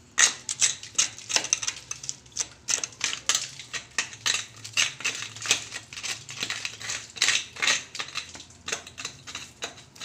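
Metal blade scraping and scratching at termite-eaten wood and dried termite mud inside a metal door frame, in quick, irregular strokes, several a second.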